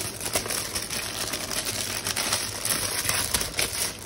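Clear plastic wrapping and a paper mailer crinkling and crackling as they are handled and pulled open by hand to take out an iPad cover, in quick irregular crackles.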